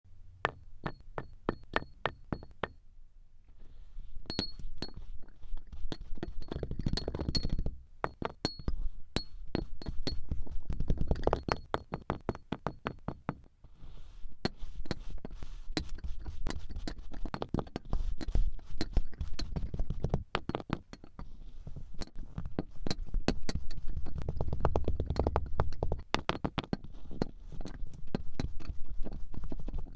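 Kinetic sand being cut and worked: a fast run of sharp clicks and dull thuds, bunched into busier and quieter stretches, over a low rumble.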